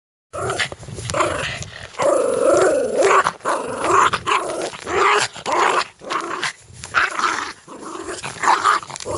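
A dog growling in a run of short bouts that rise and fall in pitch, with brief pauses between them.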